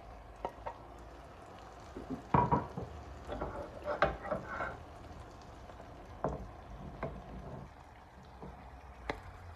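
Sliced mushrooms tipped into a frying pan of softened onions and peppers, with a wooden spoon knocking and scraping against the plate and pan in scattered clatters, busiest a couple of seconds in. Under it a low, steady sizzle from the hot pan.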